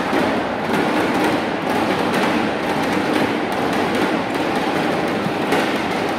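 A packed arena crowd making a steady din, with loud rhythmic beating from the stands at about two beats a second.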